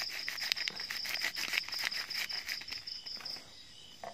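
Crickets trilling in a steady, pulsing high tone. Over the first two to three seconds a plastic salt sachet is shaken over a plate of rice, adding quick irregular crackling and rattling, which then stops, leaving mainly the crickets.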